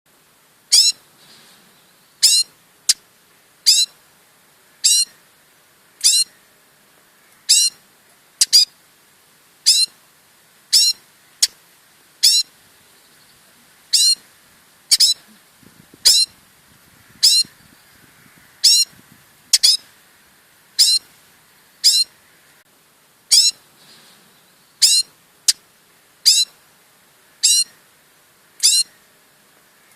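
A songbird fledgling calling repeatedly: single short, high-pitched chirps, each sliding down in pitch, about one a second.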